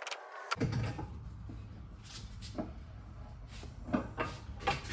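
Metal clunks and knocks from a Mercury 60HP outboard's lower unit being wiggled down off the driveshaft housing and handled, several sharp knocks at irregular intervals. A low steady rumble runs under them from about half a second in.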